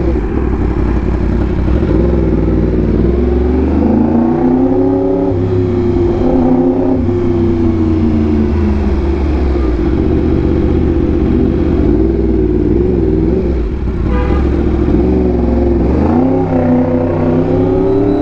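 Yamaha R1M's crossplane inline-four with an SC Project exhaust, under way, its engine pitch climbing and easing several times as the rider opens and rolls off the throttle.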